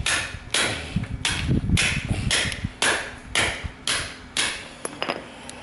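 Hammer blows on a fibre-reinforced plastic (FRP) laminate test panel, about nine sharp strikes at roughly two a second, stopping a little past four seconds in. This is an impact test of the laminate's strength.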